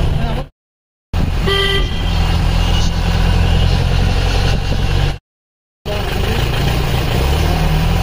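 A vehicle's engine running steadily as it drives, with a short horn toot about one and a half seconds in. The sound cuts out completely twice for about half a second.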